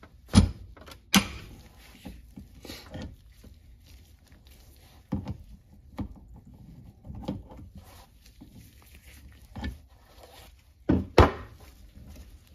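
Scattered sharp clicks and knocks of a wrench being fitted, turned and shifted on the threaded cap of a Fox RP23 rear shock's damper body to unscrew it. The loudest knocks come about half a second in, just after a second, and near the end.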